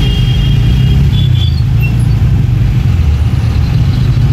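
Steady low engine rumble of idling, crawling city traffic close by, with a few faint high tones in the first second and a half.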